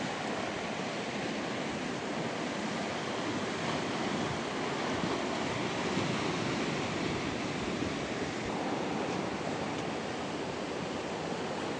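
Steady rush of wind on the microphone mixed with choppy lake water washing around a small boat.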